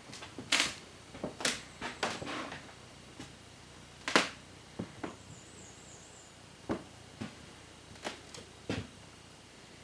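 A string of short, sharp clicks and knocks at irregular intervals, the loudest about four seconds in. A faint, high, wavering chirp comes through near the middle.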